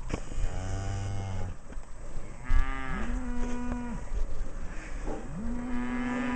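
Cattle mooing: three long moos, the first low and steady, the next two rising in pitch and then held higher.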